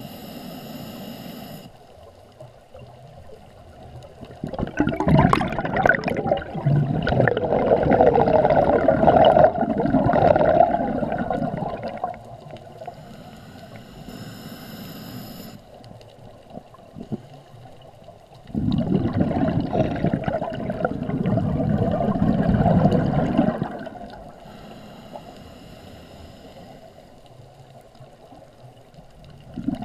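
Scuba diver breathing through a regulator, heard underwater: short hissing inhalations alternate with long, loud gurgling bursts of exhaled bubbles, two full exhalations and a third starting at the very end.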